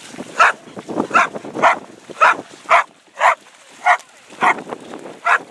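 A dog barking repeatedly: about nine short, sharp barks, roughly two a second.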